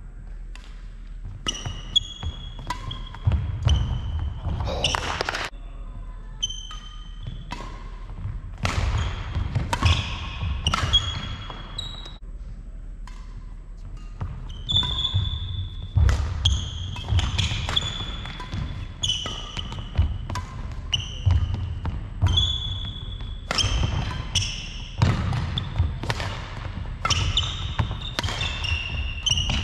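Badminton singles rally: sharp racket strikes on the shuttlecock, short high squeaks of court shoes on the wooden floor, and low thuds of footwork. These come in bursts with brief quieter pauses between points.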